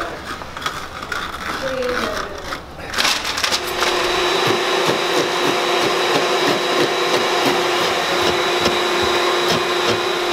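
Scraping at a wooden door jamb as old foam, staples and membrane are stripped from the rough opening. About three seconds in the sound cuts to a steady motor-like hum with repeated scraping strokes over it.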